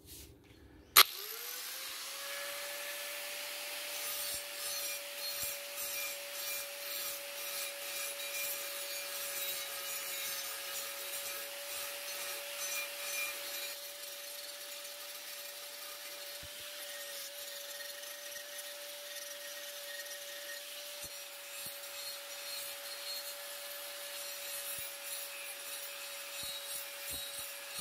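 A small 100 mm angle grinder with a diamond blade switches on with a click about a second in and spins up to a steady whine. It then grinds a curved cut into a ceramic tile with a gritty, scraping hiss.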